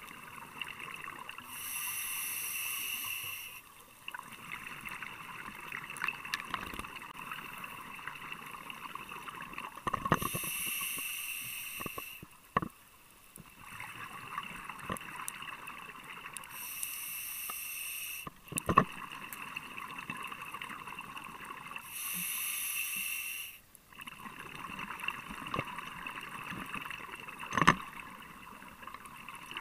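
Scuba diver breathing through a regulator underwater: four bursts of exhaled bubbles, about six to eight seconds apart, with a steady hiss between them and a few sharp clicks.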